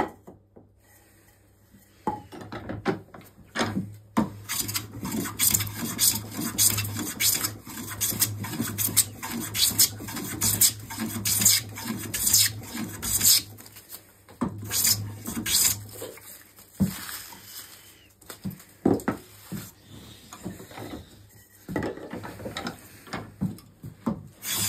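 A hand plane taking many short, quick strokes along a spruce stool leg clamped in a vise. There is a rasping shave on each pass and a clack as the plane's sole meets the wood. The strokes begin about two seconds in.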